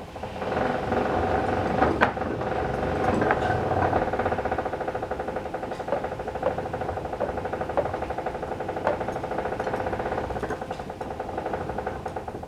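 Old Frick sawmill carriage being run back along its track: a steady mechanical whir with a fast, even pulse, broken by a few sharp clanks and rattles. It starts about half a second in and stops abruptly at the end.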